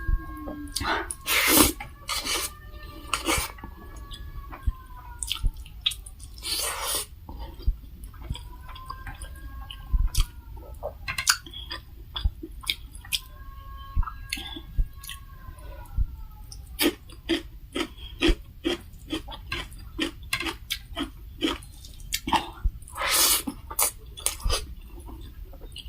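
Close-miked chewing and mouth sounds of someone eating a Nepali dal bhat meal: irregular wet smacks and clicks, with a few louder bursts.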